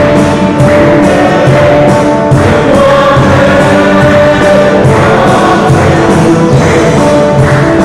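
Mixed choir of men and women singing a hymn together, in held notes that change every second or so.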